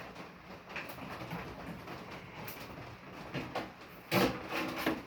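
Quiet workshop handling noises as a microwave's power cord is worked loose: faint rustles and small clicks, with a louder knock about four seconds in.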